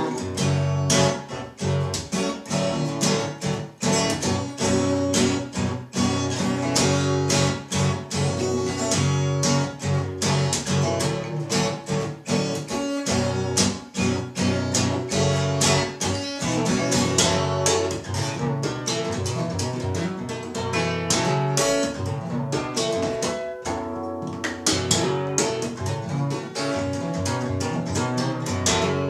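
Solo Cort CJ10X acoustic guitar played in a percussive fingerstyle: picked and fretboard-tapped notes over sharp slaps on the strings and body, in a steady rhythm, with a short softer passage about 24 seconds in.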